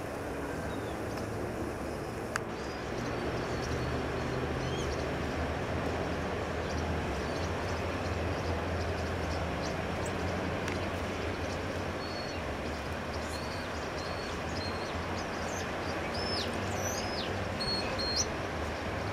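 Steady low rumble of distant traffic, with short high bird chirps here and there, several of them in the last few seconds. A single sharp click about two seconds in.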